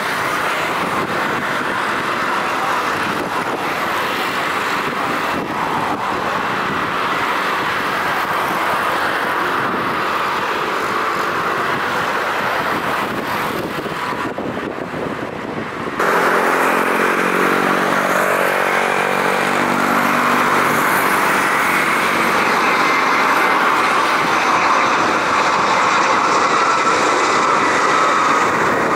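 Jet engine noise from a Boeing 777-300ER departing: a steady rushing noise. About halfway through it cuts to an Airbus A320-200's jet engines, louder, with a whine that falls in pitch as the aircraft passes.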